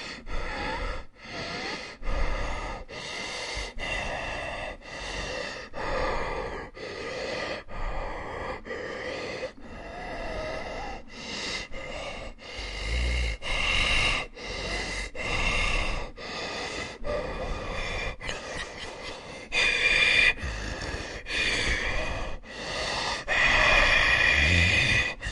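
Zombie breathing sound effect: a person's heavy breathing, in and out, one breath about every second with short gaps between, growing louder toward the end.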